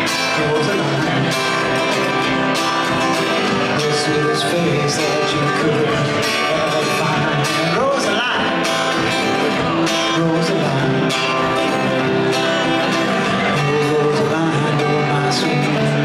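Acoustic guitar strummed steadily with a man singing along: a country-style song.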